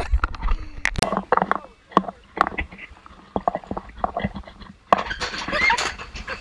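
Scattered sharp knocks and clicks, then about five seconds in a sudden splash of a diver hitting the water off a high board, followed by voices calling out.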